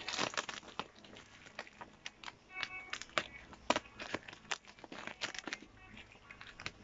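Scissors snipping through a bubble-wrap mailer, with the plastic crinkling: irregular sharp clicks and crackles.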